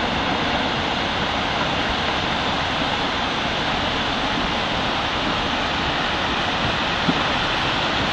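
Steady, unbroken roar of a mudslide: muddy water, earth and rocks pouring down a steep hillside.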